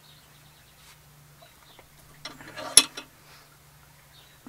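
Steel bolt being clamped in a cast-iron bench vise: quiet handling, then a short run of metal rattles and clinks a little over two seconds in, ending in one sharp metallic clack.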